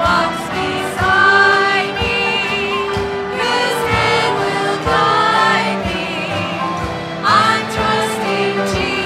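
Gospel music: a choir singing over instrumental backing with a steady beat.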